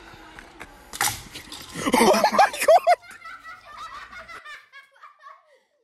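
A family, children and adults, bursting into laughter while holding water in their mouths. A short spluttering burst comes about a second in, loud shrieking laughs follow, and the laughter trails off into softer giggles.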